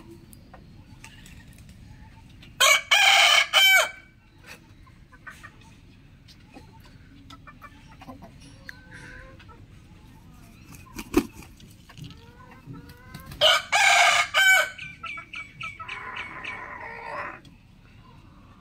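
Rooster crowing twice, about ten seconds apart; the second crow trails off in a long, quieter drawn-out ending.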